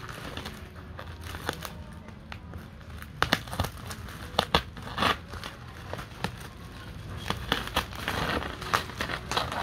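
Scissors snipping through the plastic wrap and packing tape of a parcel, with the plastic crinkling. The sharp snips come irregularly, loudest about three to five seconds in, and the crinkling thickens near the end.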